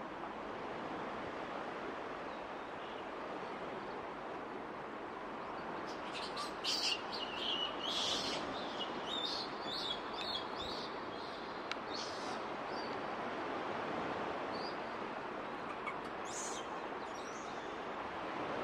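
Steady background hiss, with a run of high bird chirps from about six to eleven seconds in and a few more a little before the end.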